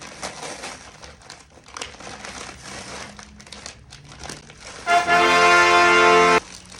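Packaging crinkling and rustling with small clicks as parcels are torn open. About five seconds in, a loud steady held tone, rich in overtones, sounds for about a second and a half and cuts off suddenly.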